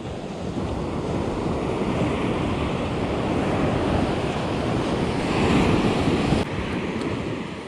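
Ocean surf breaking and washing up a sandy beach close by, with wind buffeting the microphone. The rush builds to its loudest about five to six seconds in, then drops off sharply.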